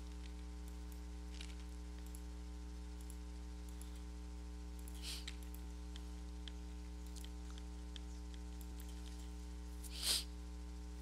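Steady electrical hum with a stack of even overtones. A few faint clicks sit over it, with a short soft hiss about five seconds in and a louder one near the end.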